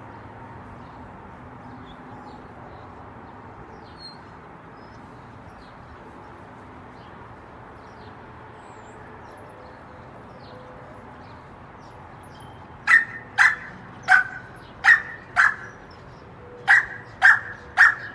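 American bully dog barking: about eight loud, sharp barks in two quick runs near the end, after a long stretch of faint steady background.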